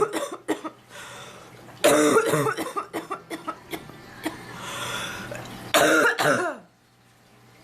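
A sick woman coughing, her throat sore: a fit of short harsh coughs about two seconds in, breathing between, and another loud cough near the end.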